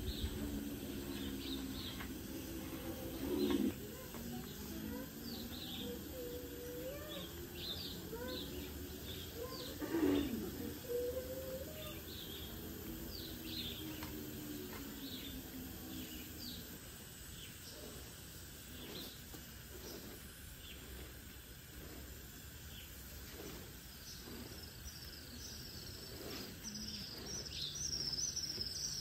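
Birds chirping again and again in short, high, falling calls. Two sharp knocks come about three and a half seconds and ten seconds in, from a steel spade digging into dry, sandy soil.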